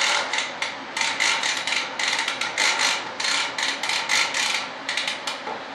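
Clear plastic vacuum bag over a composite mold crinkling and crackling in short, irregular bursts for about five seconds, then stopping.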